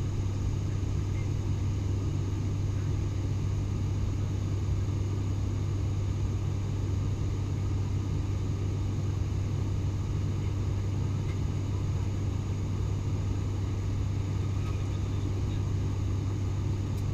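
Steady drone of an ATR 72-600's turboprop engines and propellers heard inside the cabin: a constant low hum over an even rushing noise.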